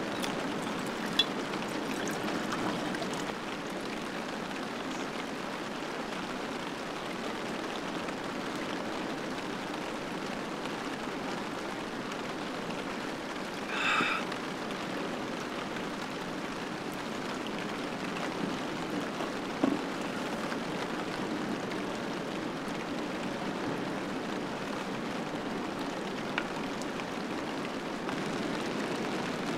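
Steady rain falling, a continuous even hiss, with a few sharp taps of drops and a short high-pitched sound about halfway through.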